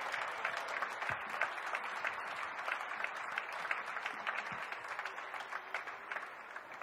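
Audience applauding: many hands clapping together, thinning out and fading near the end.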